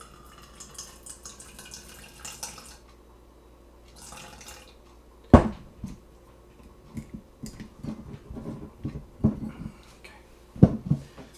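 Rice vinegar trickling from a bottle into a plastic measuring beaker for the first few seconds, then bottles knocked and set down on a wooden countertop: one sharp knock about five seconds in, a few lighter clinks, and another sharp knock near the end.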